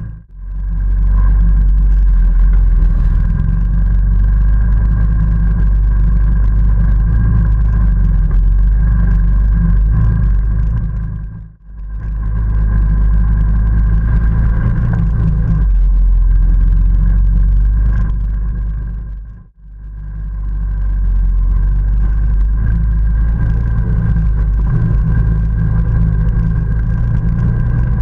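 ATV engine running under way, a loud deep rumble with a steady high whine above it. The sound fades out and back in twice, about 12 and 19 seconds in.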